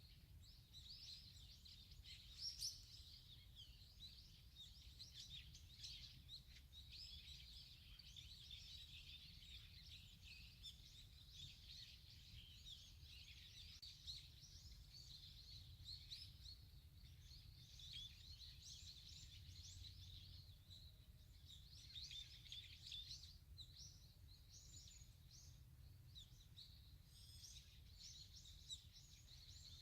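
Many small birds chirping and twittering in a dense, continuous overlapping chorus, faint, over a low steady rumble.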